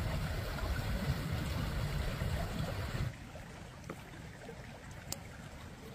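Steady rush of a flowing stream, heaviest in the low end, which cuts off abruptly about three seconds in to a much quieter outdoor background with a couple of faint clicks.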